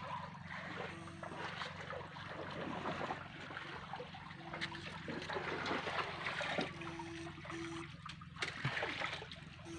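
Shallow water trickling and splashing in a concrete irrigation canal, over a steady low hum, with a few short low beeps.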